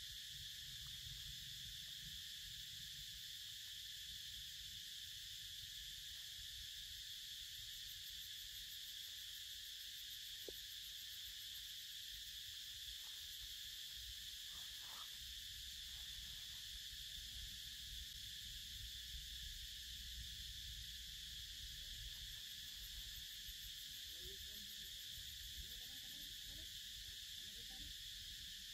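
A steady chorus of insects in the forest: a continuous high-pitched buzz that never breaks, over a faint low rumble.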